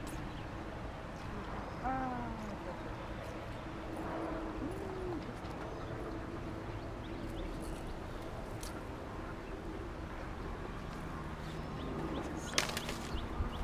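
Outdoor pond-side ambience with a steady low wind rumble on the microphone. A bird calls twice: a falling call about two seconds in and a short arched call a few seconds later. Near the end come a few sharp clicks and rustles of handling.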